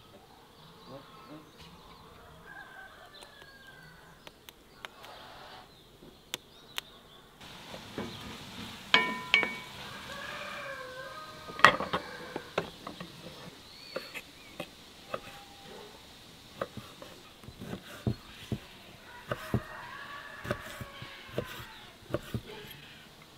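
Birds chirping and chickens clucking, with sharp clinks of ceramic bowls set down on a wooden table, the loudest about nine and twelve seconds in. Near the end come knife chops on a wooden cutting board.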